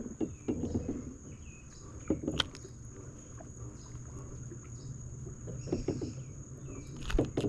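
Steady high insect drone and the low hum of a distant boat motor, with a few light clicks and rustles from hands unhooking a small crappie about two seconds in and again near the end.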